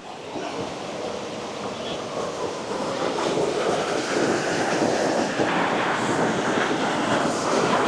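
Stream at the foot of a waterfall gushing over rocks: a steady rush of water that grows gradually louder.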